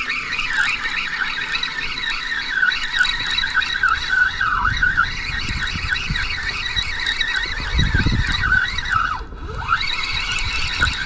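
Spinning reel being cranked, giving a squeaky mechanical whine whose pitch rises and falls with each turn of the handle. The whine breaks off briefly about nine seconds in, then starts up again.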